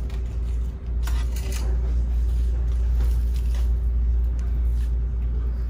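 Steady low rumble with a faint hum underneath, and brief rustling about a second in as artificial pine greenery is pulled on a metal pegboard hook.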